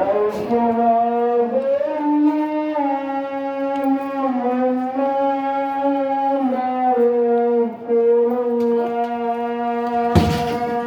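Background music: a single melodic line of long held notes that step slowly up and down in pitch, with a brief noisy burst near the end.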